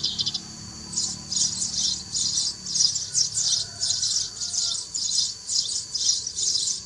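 Sparrows chirping: dense, high chattering calls repeating in quick, even clusters, about two or three a second.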